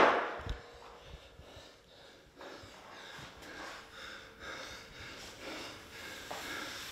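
A man breathing hard and snorting through the nose in soft, repeated breaths while recovering on the wrestling mat after taking a bump. The ring's noise from the fall dies away in the first moment.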